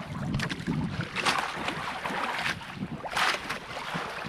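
Sea water slapping and splashing against a small fishing boat's hull, with wind buffeting the microphone. Two louder splashes come about a second in and near the three-second mark.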